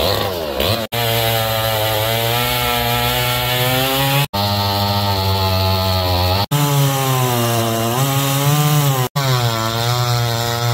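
Echo CS-310 two-stroke chainsaw running at high revs and cutting wood, its engine pitch sagging and recovering as the chain bites. The sound breaks off abruptly and resumes four times, like separate short cuts strung together.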